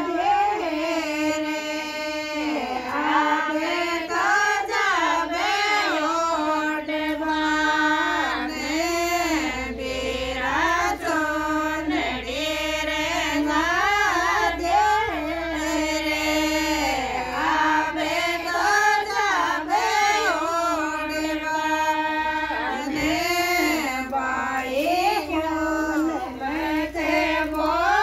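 Women's voices singing a Rajasthani folk song together in a high, continuous melodic line.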